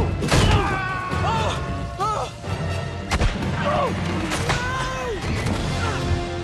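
Action-film soundtrack: dramatic music score under a series of heavy thuds and crashes as a man slams into and scrambles across cargo crates, with his short effort grunts and cries between the hits.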